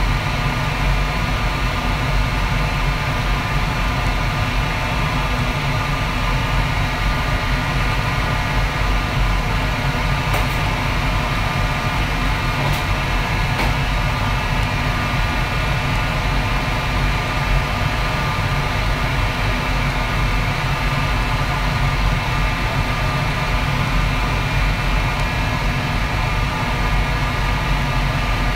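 Steady, loud drone of a commercial wok station: the gas wok burner and overhead extractor fan running without change, with a few faint clicks midway.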